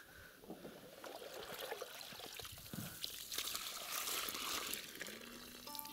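Water trickling and pouring out of a long-handled scoop as it is lifted and drained, loudest from about three and a half to five seconds in.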